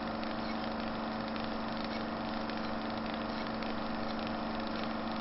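A steady droning hum with a low throb, even in level and pitch.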